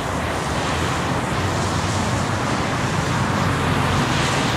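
Steady road traffic noise from passing vehicles, swelling slightly about three to four seconds in.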